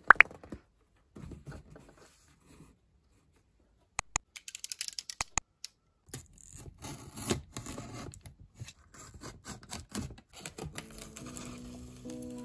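A small pot set down on cloth with a sharp knock at the start, then a snap-off utility knife's blade pushed out in a quick run of clicks about four seconds in, followed by the knife scratching and slicing through packing tape on a cardboard box. Soft music comes in near the end.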